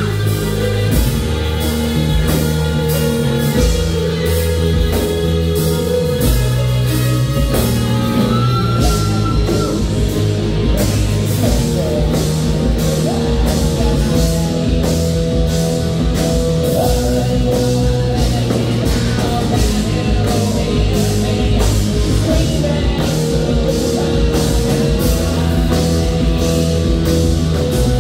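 Live rock band playing: drum kit keeping a steady beat under bass guitar, electric guitar and a Roland Jupiter-80 synthesizer keyboard.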